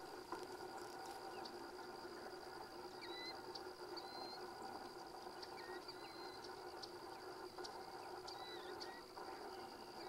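Faint marsh sounds: a steady chorus of distant animals with a thin high steady tone over it, and short whistled bird chirps, some sliding in pitch, from about three seconds in.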